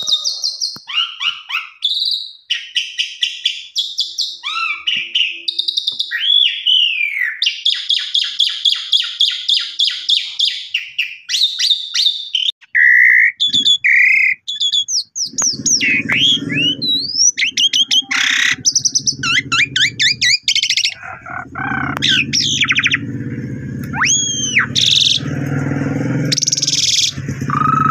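Javan pied starling (jalak suren) singing a loud, varied song of rapid chattering trills broken by whistled notes that slide up and down. About halfway through a steady low hum joins in underneath the song.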